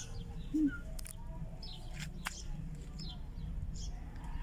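Small birds chirping: short, high, falling chirps about once a second. There is a brief low hum about half a second in and a sharp click a little after two seconds.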